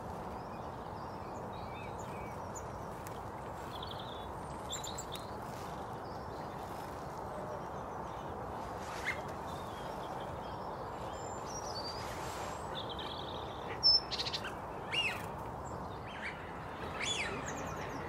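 Several wild birds calling and chirping in short scattered notes over a steady background hiss, with a few louder, sharper calls near the end.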